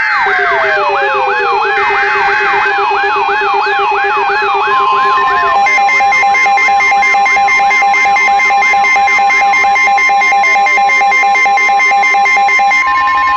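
Layered electronic emergency-alert tones. Short bursts of S.A.M.E. header data open it, over a fast wailing tone that sweeps up and down about twice a second, with falling glides and pulsing beeps. A steady weather-radio alarm tone joins about five seconds in and holds to the end.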